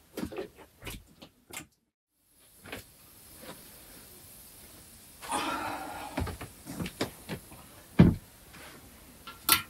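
Short clicks, knocks and rustles of hands at work: first in a plastic water basin, then, after a break about two seconds in, handling a cloth cover at a floor-pit tandoor, with a sharp thump about eight seconds in and a click near the end.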